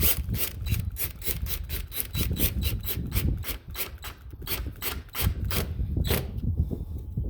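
A mounting screw being turned into its pilot hole with a Phillips screwdriver: a rapid, even run of rasping strokes, about three to four a second, that stops about six seconds in.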